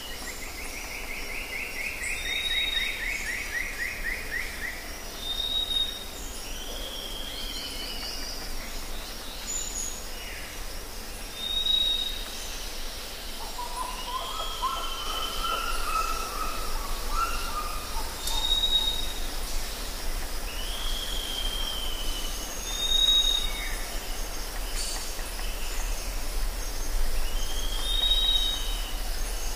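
Several birds calling over a steady background hiss and low rumble: short whistled chirps and downslurred notes repeat every few seconds, with a buzzy trill in the first few seconds and a lower warbled call around the middle.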